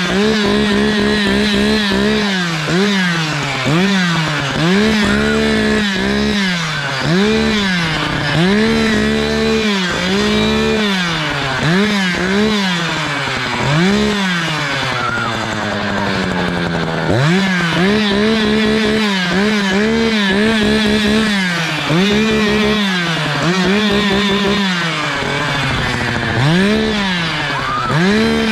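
Echo two-stroke chainsaw being revved over and over, the engine pitch rising and falling about once a second, dropping back once near the middle before revving up again.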